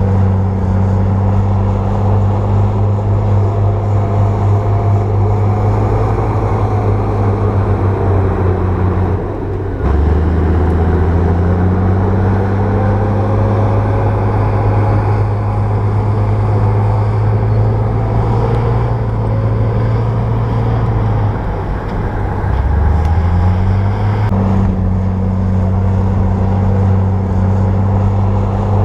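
Bulldozer diesel engine running steadily under work. Its note drops sharply about nine seconds in and again a little past twenty seconds in, each time climbing back up to its working pitch.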